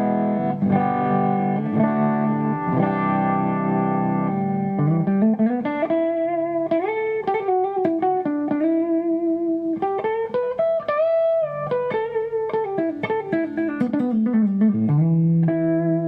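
Electric guitar on its neck pickup (a Kiesel Osiris with beryllium pickups) through a clean Kemper amp profile: ringing chords for the first few seconds, then a single-note lick with slides and bends, ending on a chord. The tone is warm and smooth.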